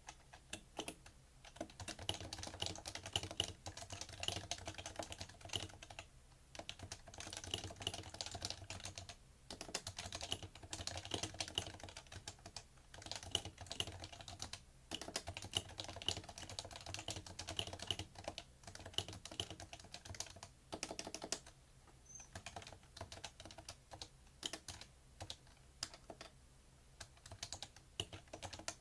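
Typing on a PFU Happy Hacking Keyboard Professional2, whose Topre capacitive key switches give a soft, rapid clack. The keystrokes come in quick runs with brief pauses.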